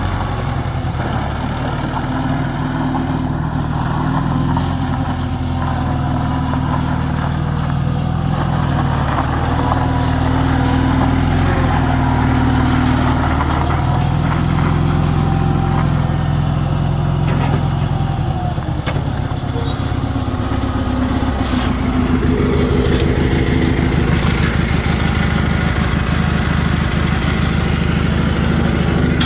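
Bobcat 440 skid steer's engine running steadily, its note shifting a little about three-quarters of the way through.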